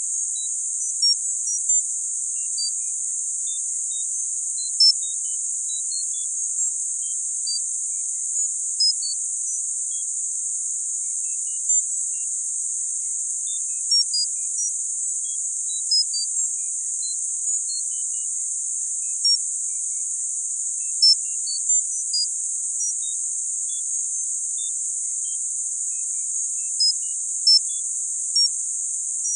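Tinnitus-masking sound: a steady, high-pitched hiss with short high pings scattered at random, about one or two a second.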